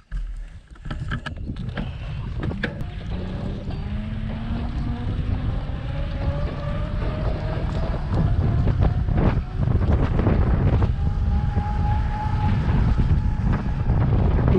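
Wind buffeting the microphone of a handlebar-mounted camera on a moving bicycle, a heavy low rumble with road and tyre noise that gets louder about halfway through. A faint whine rises slowly in pitch over the first several seconds, and there are occasional small knocks and rattles.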